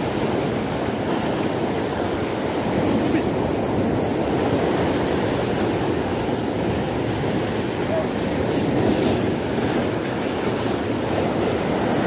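Steady rush of sea water and wind: waves washing and breaking continuously, with no distinct events.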